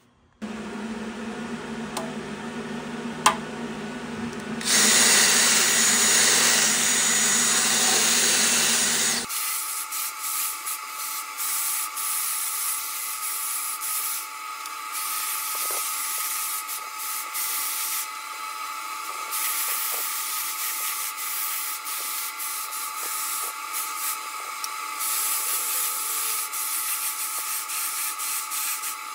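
A hand-held power tool spinning a small rotary burr, grinding out the cast-iron port and valve bowl of a Lincoln V12 flathead block. It is a steady machine whine with grinding noise, loudest from about five to nine seconds in, and its sound changes abruptly about nine seconds in.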